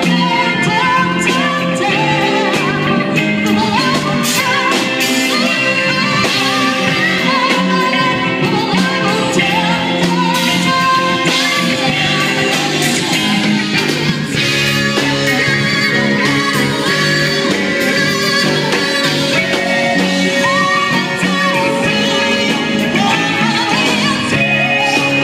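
Live band playing a song with amplified instruments and a singer singing over them.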